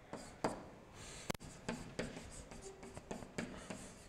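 Faint stylus strokes on an electronic writing surface, short scratches and taps as words are handwritten, with one sharper click about a second in.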